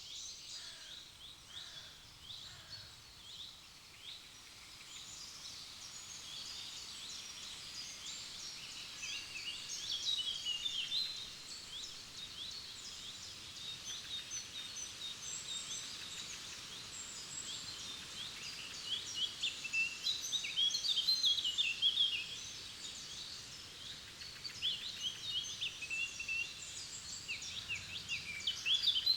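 Several forest songbirds singing at once, a continuous tangle of quick chirps and trills that swells in louder bursts around ten seconds in, again at about twenty seconds, and near the end.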